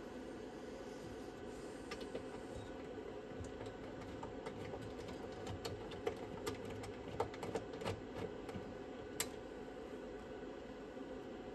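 Light, irregular clicks and taps of a screwdriver and screws on the sheet-metal chassis and shield plate of an opened cassette deck, the sharpest click about 9 seconds in, over a steady low hum.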